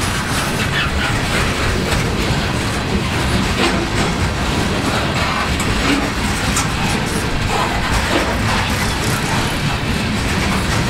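Loaded coal hopper cars of a freight train rolling past at speed: a steady roar of steel wheels on rail, with frequent clicks of wheels over rail joints.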